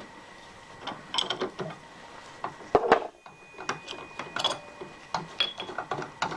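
Irregular metallic clicking and rattling of hand-worked machine-shop mechanisms, with a louder clatter about three seconds in.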